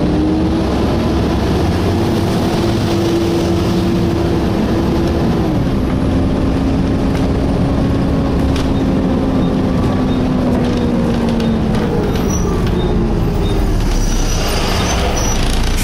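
Downstairs cabin noise of a Volvo B7TL double-decker bus under way: a loud, steady drone from the engine bay and its cooling fan, with a whine that climbs, drops suddenly about five seconds in, then sinks away later on.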